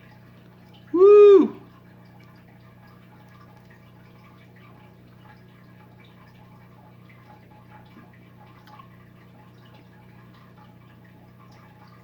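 A man's single loud 'woo!' of delight about a second in, its pitch rising and falling. After it comes a faint steady low hum with scattered soft clicks.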